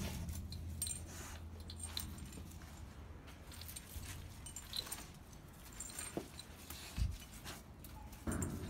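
Faint metallic jingling of the tags on a Vizsla's collar as the dog moves about, in scattered light clicks.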